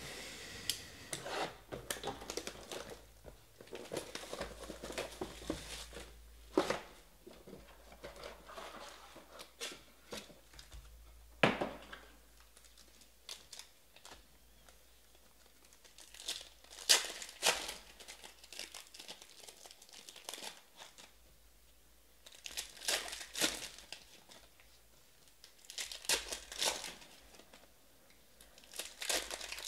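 Foil wrappers of 2019 Panini Certified football card packs being crinkled and torn open by hand, in irregular clusters with quieter gaps. One sharp knock a little over a third of the way in stands out as the loudest sound.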